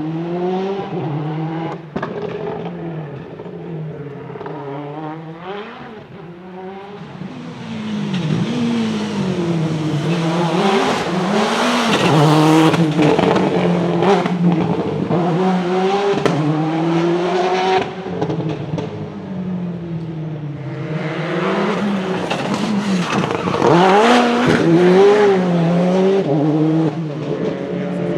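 Ford Focus RS WRC rally car's turbocharged 2-litre four-cylinder engine being driven hard, its note rising and falling again and again as it accelerates and backs off. It grows louder about eight seconds in and again near the end.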